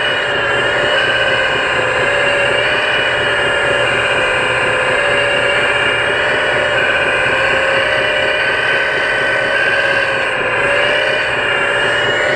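Hydraulic pump of a 1/14-scale Magom HRC CAT 330D RC excavator giving a steady, high-pitched whine while the boom and bucket work. Its pitch wavers as the functions load it and sags briefly near the end.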